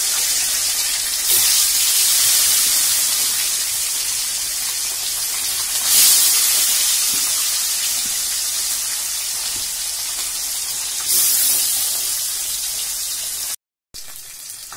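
Bata fish sizzling as they fry in hot mustard oil in a stainless-steel kadai, a loud, dense hiss. It jumps louder three times, about a second in, near the middle and late on, as more fish go into the oil, each time easing back, then breaks off for a moment near the end and comes back quieter.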